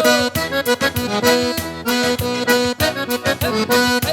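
Accordion playing an instrumental passage of a sertanejo song over a steady percussive beat, with held chords and short melodic notes.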